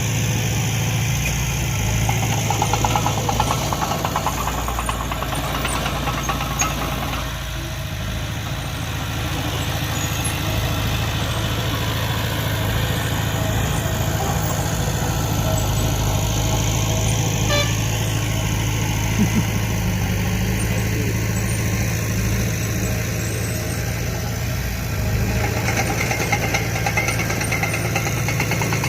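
Diesel engines of heavy earthmoving machinery running steadily, working while dump trucks are loaded. The engine note picks up briefly a couple of times.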